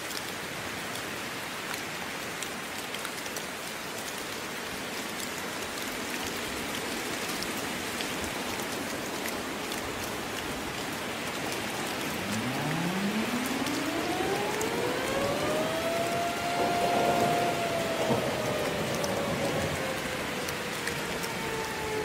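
Steady rain throughout. About twelve seconds in, an outdoor warning siren starts winding up, its pitch rising over several seconds, then holding and slowly sinking: the siren sounding for a tornado warning.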